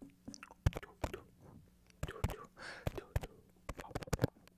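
Close-microphone ASMR mouth sounds: irregular wet clicks and smacks, with a short breathy whisper-like sound about halfway through.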